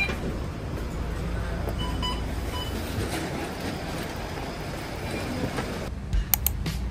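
A train in motion, a steady rumble with a few short electronic beeps about two seconds in. Near the end it gives way to a quieter scene with a few sharp clicks.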